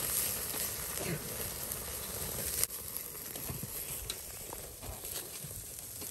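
Meat sizzling over hot charcoal on a small kettle grill. The sizzle drops away suddenly about two and a half seconds in, leaving a few faint clicks.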